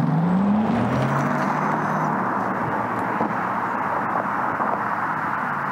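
Porsche Taycan electric car driving towards the camera: a steady rush of tyre and road noise, with a low motor whine that rises in pitch in the first second, then holds briefly.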